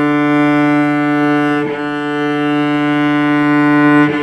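Cello bowed in long strokes on one sustained open-string note, back and forth with smooth bow changes about two seconds in and near the end.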